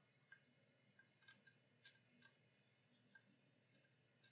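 Near silence with a few faint, scattered clicks: a plastic alignment tool turning the ferrite core of an IF transformer in a Braun SK 2b tube radio's chassis during IF alignment.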